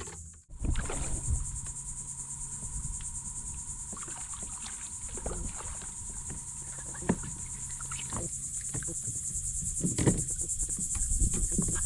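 A steady high chorus of insects trilling with a fast, even pulse. Scattered knocks and rustles come from handling a rod and a small catfish lifted out of the water, louder near the end.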